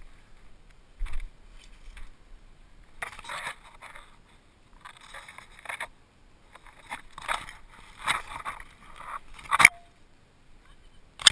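Leaves and branches rustling and scraping against the helmet camera in irregular bursts while pushing through dense undergrowth, with a sharp snap of a twig or branch near the end.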